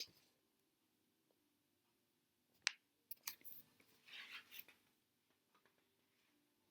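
Faint handling of a picture book's pages: after about two and a half seconds of near silence, a sharp paper click, a few small clicks and a brief soft rustle as the pages are turned.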